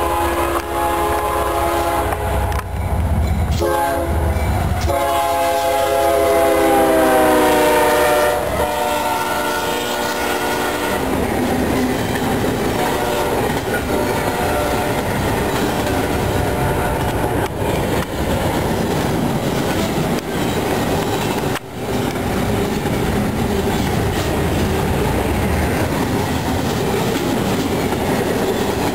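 Diesel freight locomotive's air horn sounding as the train approaches: short blasts, then a long blast whose pitch drops as the locomotive passes, about eight seconds in. The horn stops about eleven seconds in, leaving the steady wheel-and-rail noise of the double-stack container cars running past.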